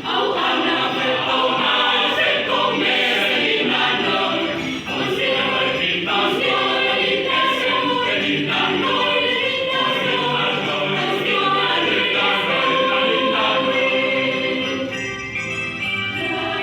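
A mixed school choir singing in parts.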